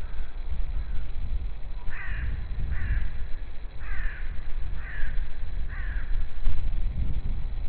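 Crow-like cawing: five harsh calls about a second apart, over a steady low rumble.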